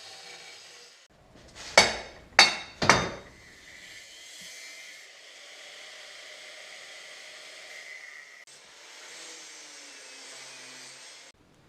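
Metal fabrication in a workshop: three sharp, loud knocks about two seconds in, then a power tool running with a steady hiss and faint whine while cutting steel, which stops abruptly near the end.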